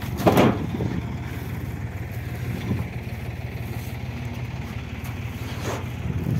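Tractor engine running steadily while it pulls the bale-loading machine and trailer, with a short loud burst of noise about a third of a second in.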